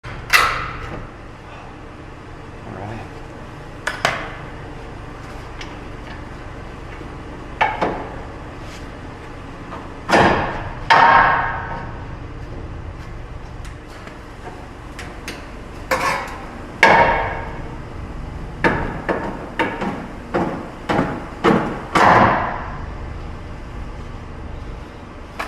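Hammer blows on steel, each strike ringing briefly. The strikes are spaced out at first, then come in a quick run of blows about three quarters of the way through.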